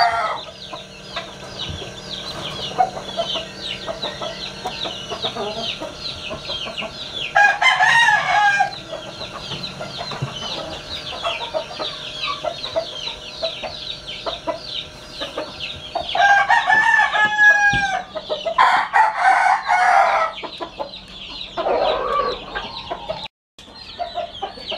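Many newly hatched chicks peeping without pause in quick, high, falling chirps. Adult chickens cluck and crow loudly over them in several bursts of a second or two.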